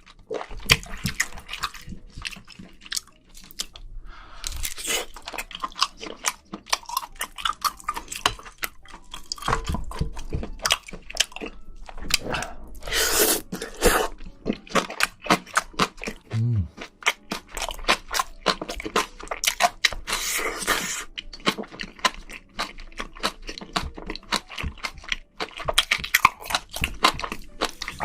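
Close-miked mukbang eating of spicy seafood: wet chewing and mouth smacks with rapid clicks throughout, and louder stretches about halfway and about two-thirds of the way through.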